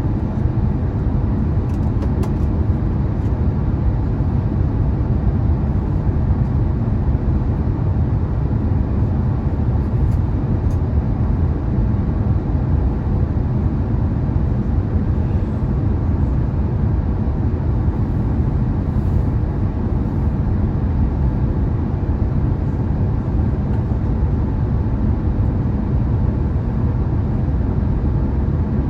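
Steady cabin noise inside an Airbus A350-1000 airliner on approach: the rush of airflow and the Rolls-Royce Trent XWB engines, heavy in the low end with a faint steady hum, unchanging in level.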